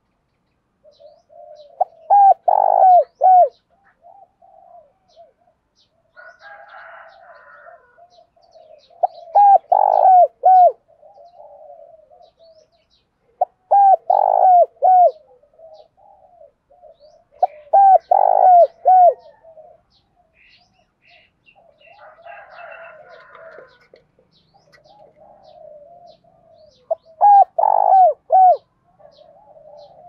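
Caged spotted dove singing its coo song, five loud phrases of several coos each at uneven gaps of about four to nine seconds, with softer low cooing in between. This is the 'thổ đồng' style song that Vietnamese dove keepers use to provoke wild doves.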